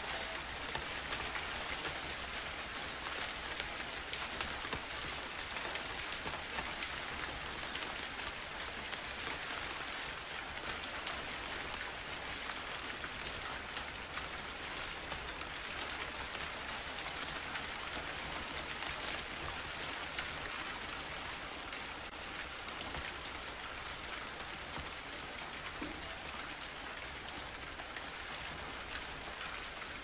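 Steady rain falling into shallow puddles, with many individual drops splashing on the water.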